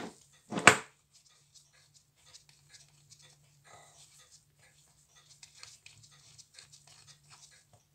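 A thump about half a second in, then light metallic scraping and small clicks as the screw-down stainless steel case back of a Certina DS 2 watch is turned off its threads by gloved fingers.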